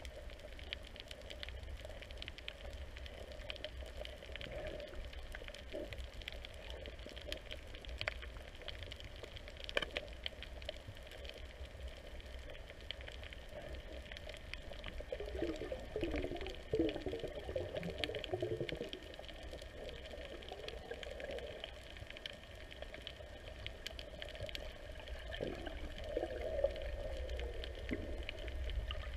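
Underwater ambient noise: a low steady rumble with faint crackling, with stretches of bubbling gurgles about halfway through and again near the end.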